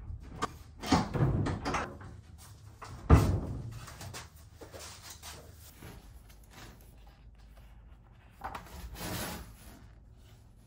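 A small greenhouse's door being handled and banged shut, with the loudest knock about three seconds in. Softer handling clicks follow, and near the end there is a short rustle of a book's pages being turned.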